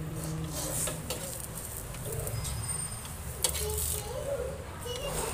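A steel spoon pressing and scraping a burger bun on a hot iron tawa, with short scrapes and taps over a steady low hum. A pigeon coos softly a few times in the background.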